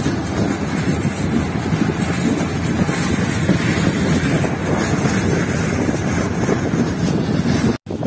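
Wind buffeting the microphone and the steady running rumble of a passenger train, heard from an open carriage window. The sound cuts out for an instant near the end.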